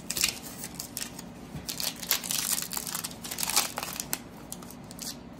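Plastic wrapper of a baseball card pack being torn open and crinkling as the stack of cards is pulled out, a rapid irregular crackle that is densest in the middle.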